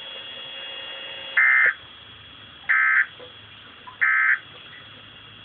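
Three short bursts of EAS/SAME digital data tones from NOAA Weather Radio receivers: a harsh warbling screech, each burst about a third of a second long and about a second apart. The short bursts are typical of the end-of-message code that closes the weekly test.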